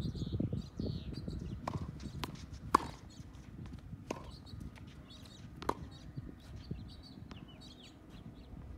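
Tennis ball being struck by a racket and bouncing on a hard court: several sharp pops a second or so apart, the loudest about three seconds in. Small birds chirp throughout.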